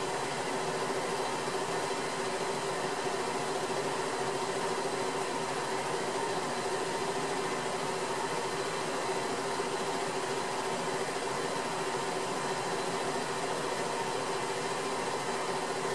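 Steady hum and hiss with a couple of fixed tones, like a small motor or fan running. It does not change at all.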